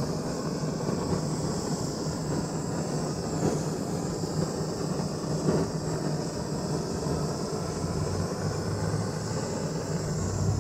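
Hand-held propane torch on a Coleman cylinder burning with a steady hiss as it is moved along the lid's edge.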